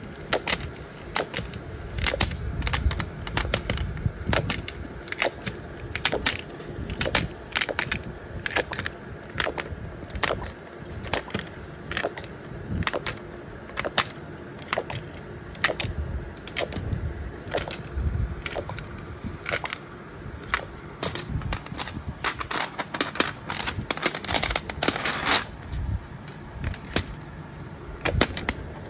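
Nail polish factory machinery clattering: rapid, irregular clicks and clacks over a low rumble, with a brief hiss about 25 seconds in.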